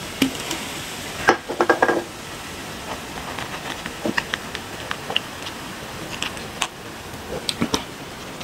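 A person drinking beer from a glass mug: a quick run of gulps and swallows a little over a second in, then scattered small clicks and taps of the glass and tableware.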